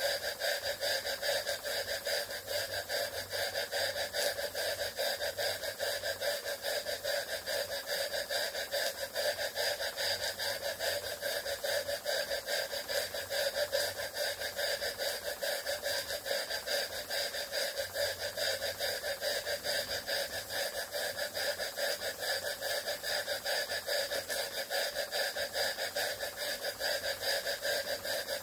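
Jensen 20G model steam engine running steadily on steam from a copper boiler, with a fast, even beat from its cylinder, while it belt-drives a small generator.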